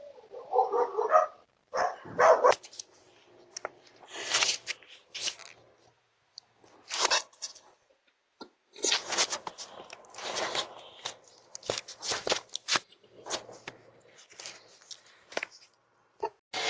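A dog barking a few times in the first three seconds, followed by repeated short bouts of rustling and scraping.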